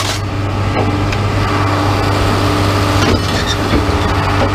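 An engine idling steadily, with a few short knocks and clanks as metal chair frames are pulled from a pickup bed.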